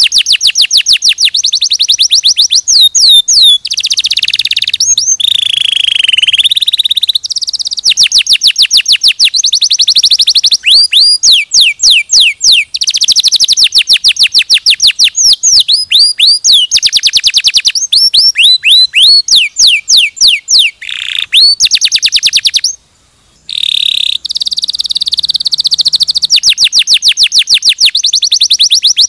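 Domestic canary singing a long, loud, high-pitched song of rapid trills and rolls, each phrase a fast run of repeated notes, switching phrase every second or two. There is one brief pause about three quarters of the way through.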